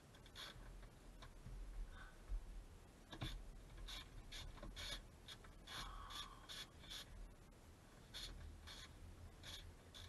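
Faint, irregular scratching and clicking of a hand tool working at a car's interior pillar trim: about a dozen short scrapes, starting about three seconds in.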